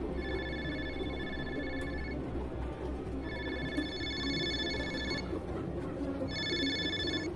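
Phone ringing with a trilling electronic ringtone: three rings of about two seconds each, a second apart, the last one cut short.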